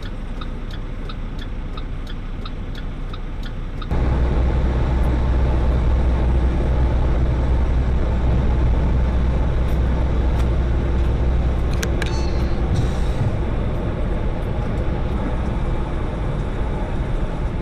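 Inside a semi-truck's cab: a quiet engine idle with a regular ticking about three times a second. About four seconds in it gives way abruptly to the much louder, steady low drone of the truck's engine and road noise while cruising on the highway.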